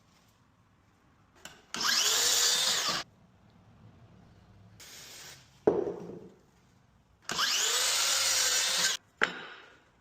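A power tool working wood in two short bursts of about a second and a half each, each opening with a rising whine as the motor spins up. Sharp knocks fall between and after the bursts.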